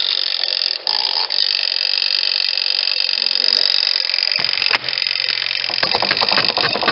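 Twin tub washing machine's spin-dryer basket spinning, a loud rushing noise joined by a motor hum about four seconds in and then a fast knocking rattle near the end: the load in the spin basket is unbalanced.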